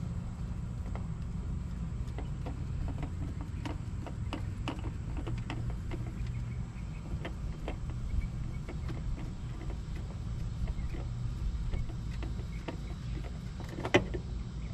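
Spin-on diesel fuel filter being twisted off its housing by hand: scattered light clicks and taps, with one sharper click near the end, over a steady low rumble.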